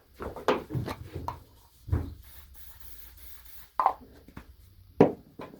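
An old metal hinge being handled and worked after a spray of PTFE lubricant: a series of knocks and clicks with rubbing between, the sharpest knock about five seconds in.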